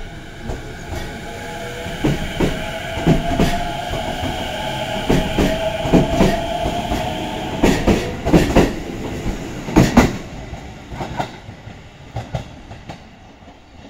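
JR East E233-series electric train pulling out of a station: its motors whine, rising slowly in pitch and fading after about eight seconds. Its wheels clack over rail joints again and again as the cars roll past.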